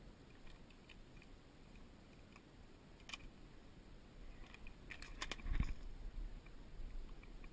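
Clicks of an airsoft revolver being reloaded with shells by hand: faint handling clicks, a sharp click about three seconds in, then a quick run of clicks and a dull knock about five and a half seconds in.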